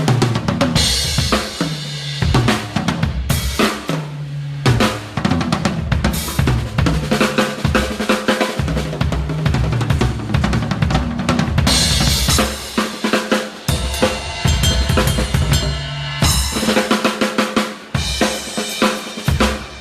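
Acoustic drum kit played hard in a sound check: kick and snare grooves with fills running down the toms, and crash cymbals struck every few seconds.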